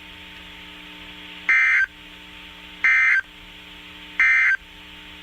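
NOAA Weather Radio SAME digital data bursts: three short, identical warbling data squawks about a second and a half apart, over a steady low hum. Their shortness fits the End-of-Message code that closes an EAS warning.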